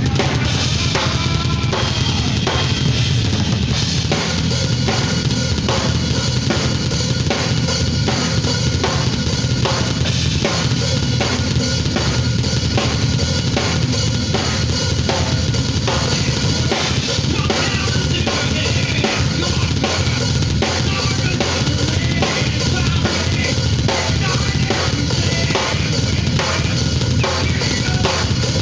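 Drum kit played along with a song, a steady driving beat of bass drum, snare and cymbals on a Roland electronic drum kit mixed with the backing track.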